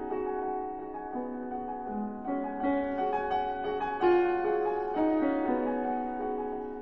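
Background piano music, with held notes and chords changing every second or so.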